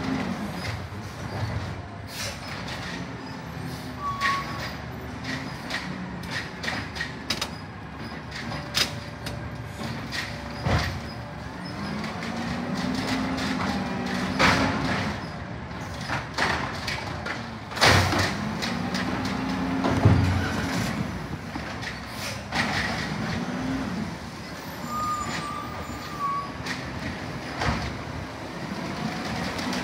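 Peterbilt 320 refuse truck with an Amrep automated side-loader arm working a curbside pickup: the diesel engine revs up and down in pitch several times as the hydraulic arm lifts and dumps a recycling cart. Sharp clanks and thuds of the cart knocking against the hopper come in between.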